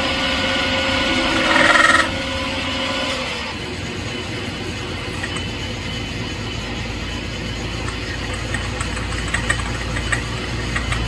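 Metal lathe running with its three-jaw chuck spinning. The motor's whine is loudest at first, then drops away about two seconds in, and the lathe runs on more quietly and steadily.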